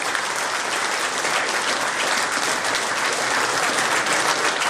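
Audience applauding, dense steady clapping from many hands.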